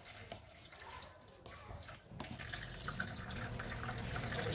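Water dripping and trickling off freshly rinsed, cooked spaghetti in a plastic basket. From about two seconds in it grows louder with wet squishing and rustling as the noodles are tossed with a wooden spatula.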